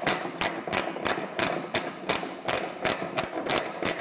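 Ratchet wrench with a 10 mm socket clicking in quick, even strokes, about three a second, as a bolt is undone.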